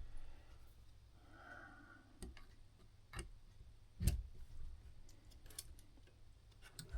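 A handful of light clicks and taps, spaced unevenly about a second apart, from metal tools and clock movement parts being handled on a workbench.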